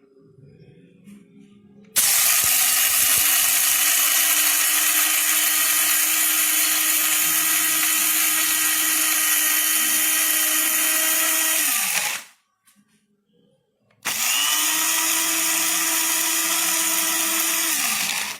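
Bodum Bistro electric blade coffee grinder's motor running in two bursts: a long run of about ten seconds that winds down with a falling pitch when released, then after a short pause a second run of about four seconds.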